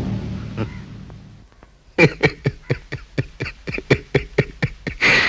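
Boy laughing hard in a rapid run of short 'ha-ha' bursts, about four or five a second, starting about two seconds in and ending on a longer, louder cry of laughter. Before that, the ringing tail of a dramatic drum hit fades out.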